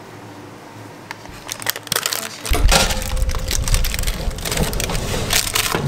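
Metal clatter of a springform cake pan being slid onto a wire oven rack: scattered clicks and knocks start a couple of seconds in, then a run of sharp metallic clicks over a low rumble.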